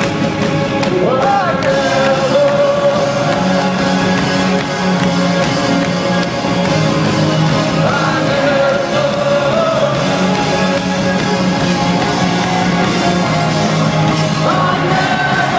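Live band playing a song with a singer, picked up loud from among the audience.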